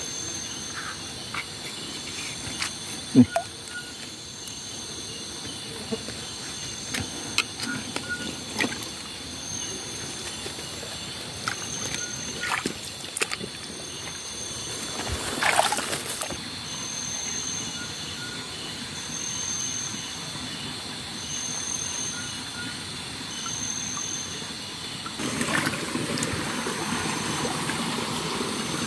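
Night insects chirring steadily in a high band, with a pulsing call about every two seconds in the second half. Over it come scattered splashes and knocks of hands and a net working in a shallow forest stream, the loudest burst about halfway through. Rustling footsteps through leaves and undergrowth follow near the end.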